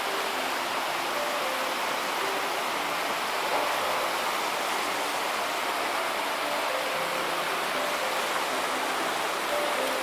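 Steady rushing of a fast-flowing glacial meltwater river, an even roar of water with no breaks.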